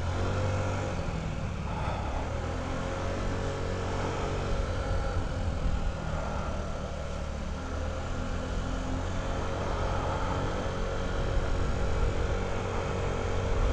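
Honda Ruckus scooter engine running steadily as the scooter is ridden through a concrete parking garage.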